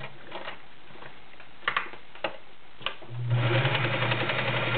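Kenmore Model 1940 sewing machine with all-metal gears and a 1-amp motor, stopped at first, with three short clicks; about three seconds in it starts up again and runs steadily, stitching through six layers of denim.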